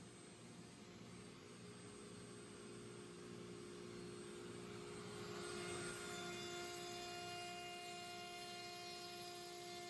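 Zenbot CNC router surfacing its spoilboard: the router spindle runs with a steady whine as the gantry carries the bit back and forth across the table. About six seconds in, a higher whine joins.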